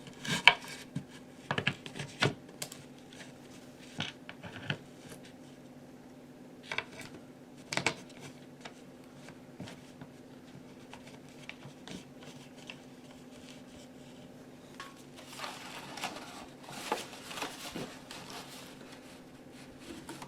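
Scattered clicks and knocks of hand work on the chair: screws and wooden parts being handled and set in place, with a stretch of rubbing and scraping a few seconds before the end. A faint steady hum runs underneath.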